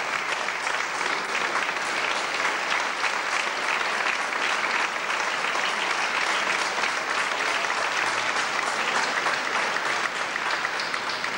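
Audience applauding steadily, greeting a singer as she walks onto the stage.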